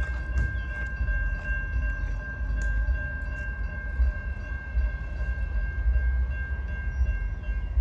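Freight train rolling by: a steady low rumble from the cars, with a steady high-pitched whine held over it and scattered faint clicks.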